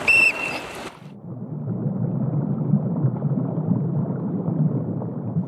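A short whistle blast over splashing from swimmers doing front crawl. About a second in, the sound turns into a muffled, churning rumble of water heard from underwater as the swimmers kick.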